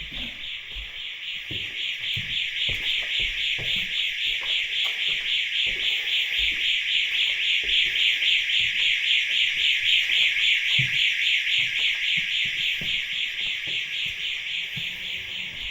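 Intruder alarm sounder set off by motion sensors, sending out a rapid pulsing high-pitched tone that grows louder toward the middle and then eases off.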